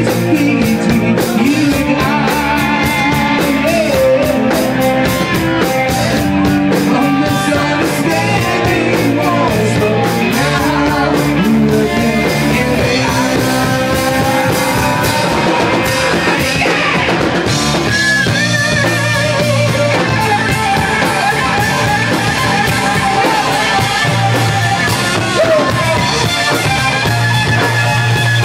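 Live rock band playing loud: a male singer on a microphone backed by electric guitars, bass guitar and a drum kit.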